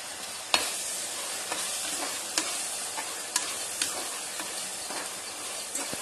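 A perforated metal ladle stirring onions, tomatoes and green chillies as they fry in oil in a pressure cooker: a steady sizzle with about six sharp clicks of metal on the pot. The first click, about half a second in, is the loudest.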